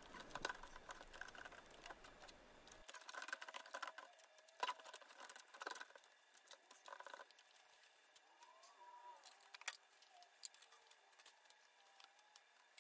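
Near silence, with faint scattered taps and crinkles from gloved hands handling a duct-taped ceramic-tile armor plate.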